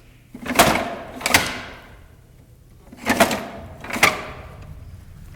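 Metal locker door banged twice in quick succession, then twice again about two seconds later, each bang ringing briefly.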